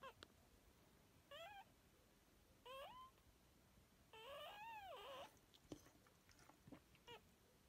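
Faint, high, mewing cries from a Pembroke Welsh Corgi during whelping: two short calls, then a longer wavering one, then another short one near the end.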